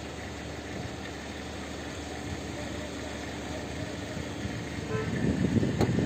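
Steady low rumble of a vehicle running, heard from the open cargo bed of a pickup truck. It grows louder about five seconds in.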